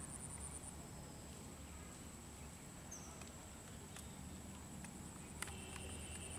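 Faint outdoor ambience: an insect's steady high-pitched trill that pulses rapidly just after the start and again near the end, over a low rumble, with a few faint clicks.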